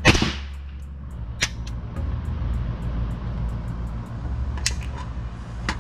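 A single suppressed shot of subsonic 7.62x39 from a Zastava ZPAP92 AK pistol right at the start, with a short tail. After it come a few sharp metallic clicks of the gun being handled, one about a second and a half in and a couple near the end, over a steady low rumble.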